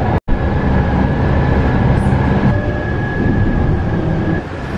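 Light rail train heard from inside the car while running along street track: a steady rumble with a thin steady whine over it. The sound cuts out for a moment just after the start, and the whine stops near the end.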